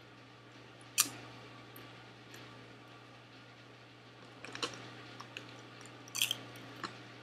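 Cheetos Cheddar Jalapeño popcorn being bitten and chewed close to the microphone: a few crisp crunches, the sharpest about a second in and a cluster of them over the last three seconds, over a faint steady hum.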